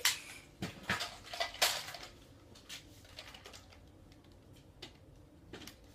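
A run of sharp clicks and knocks from hard objects being handled, several close together in the first two seconds, then only faint scattered ticks.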